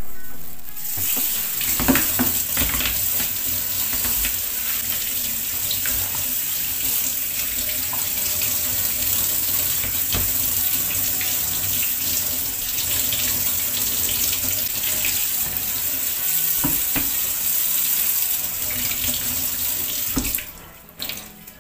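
Water running steadily from a tap into a sink, with a few small knocks, shut off about twenty seconds in.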